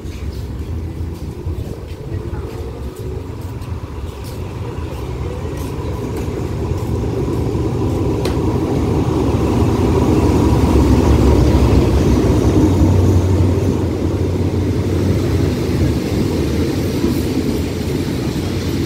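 Diesel locomotive hauling a passenger train into the station. The low engine rumble and rolling wheels build, are loudest as the locomotive passes about ten seconds in, then ease off as the coaches roll past and slow to a stop.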